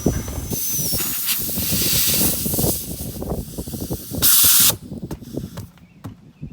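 Compressed air hissing out of a punctured pickup truck tire while a plug is worked into the hole, with small knocks and rustles of handling. A last, louder spurt of air near the end cuts off sharply as the plug seals the leak.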